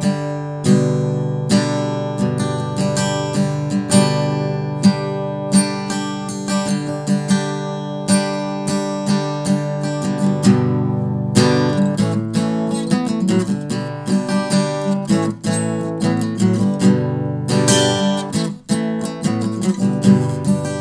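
Background music: strummed acoustic guitar. The strumming quickens about halfway through.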